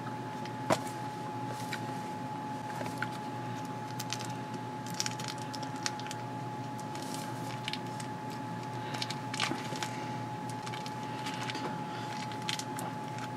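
Faint handling noises, scattered small clicks and short rustles of hands working at a small object, over a steady faint electrical hum.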